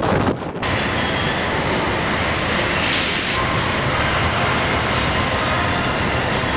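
Wind buffeting the microphone on an open ship's deck for the first half second, then a steady rumbling, rattling noise aboard a cruise ship in a storm. A brief hiss comes about three seconds in.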